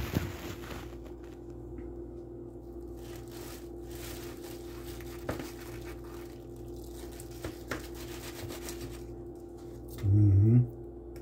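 Foil sandwich wrapper crinkling and rustling as a sub is handled, with a few light clicks, over a steady low hum. Near the end a man makes a short vocal sound.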